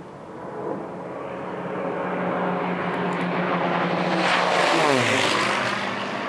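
Columbia 400's turbocharged six-cylinder engine and propeller droning on a low pass, growing louder as the plane approaches, then dropping sharply in pitch as it passes overhead about five seconds in.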